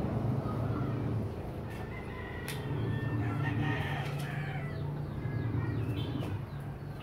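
A bird calling: one drawn-out, high call from about two seconds in to about four and a half seconds in, over a steady low hum.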